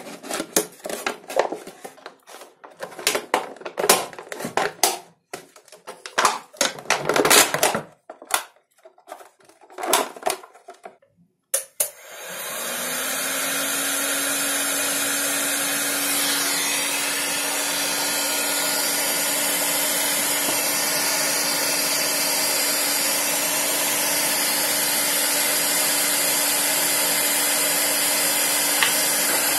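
Plastic bottle crinkling and rustling in the hands in short bursts. About twelve seconds in, a Stanley electric heat gun clicks on, and its fan spins up to a steady rushing blow with a low motor hum as it heats the PET bottle to shrink it onto a wooden mould.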